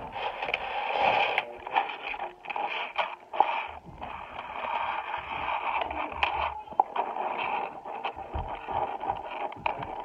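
Small magnetic balls clicking sharply now and then as they are snapped onto a ring of balls, over a steady, muffled, tinny background sound.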